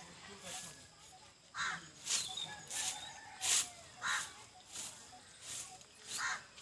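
Repeated short, harsh bird calls, about one every two-thirds of a second.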